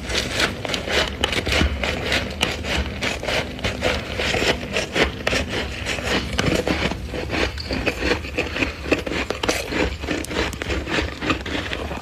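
Soft freezer frost crunching continuously as it is scraped and broken away, many quick crisp crunches a second.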